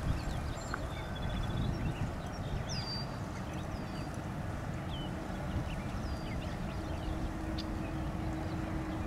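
Outdoor airport ambience: a steady low rumble of distant jet traffic and wind, with small birds chirping and trilling over it. A faint steady hum joins about halfway through.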